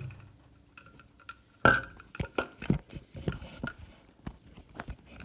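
A spoon stirring oats and hot water in a bowl, clinking irregularly against the side. One louder clink comes about a second and a half in and rings briefly.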